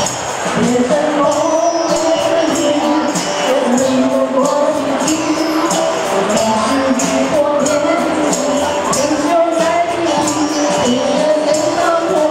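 Live rock band playing a pop song: female vocals over electric guitars, bass guitar and a drum kit, with a steady cymbal beat.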